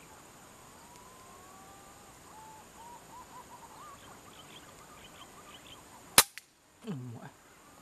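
Faint whistled bird calls, then a single sharp gunshot about six seconds in, aimed at a perched green pigeon. A brief low falling sound comes right after the shot.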